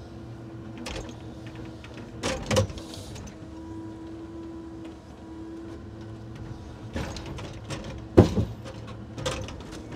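Timber truck's loader crane working, heard from inside the crane cab: a steady hydraulic hum over the engine's low rumble. Several sharp knocks and clunks come as the grapple handles timber mats, the loudest about eight seconds in.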